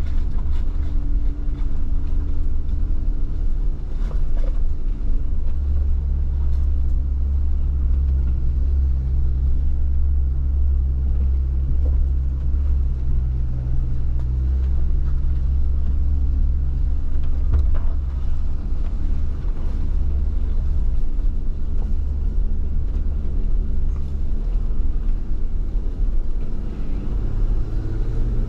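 Off-road 4x4's engine running at low, steady speed with a deep rumble and a few faint knocks. The engine note rises near the end.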